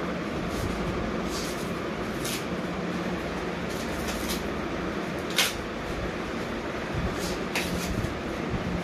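Plastic and foam packing wrap crinkling and tearing in short strokes as it is pulled off a new bicycle's frame, the sharpest rip about five seconds in, over a steady background hum.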